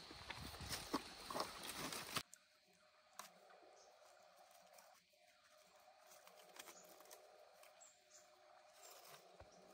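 Leaves and undergrowth rustling and snapping, with footsteps through dense vegetation, for about two seconds. It then cuts off suddenly to near silence with only a few faint ticks of leaves being handled.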